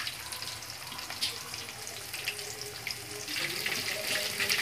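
Fish pieces deep-frying in mustard oil: a steady sizzle with scattered small pops, louder and busier from about three seconds in.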